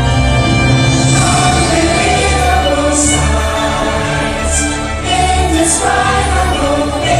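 Orchestral show music with a choir singing, a sustained full sound with a sung melody over steady low notes.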